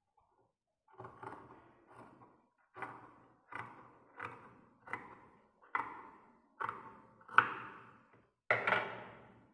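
Large tailor's scissors snipping through fabric, about a dozen cuts at roughly one every 0.7 seconds, the last few the loudest, as the excess cloth is trimmed off along a seam.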